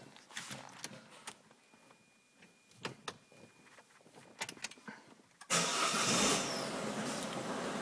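A few faint clicks, then about five and a half seconds in a loud rush of air starts abruptly, peaks briefly and settles into a steady blowing noise: the Citroën C4's climate-control blower fan running at full speed as soon as the air is switched on, the fault the owner is recording.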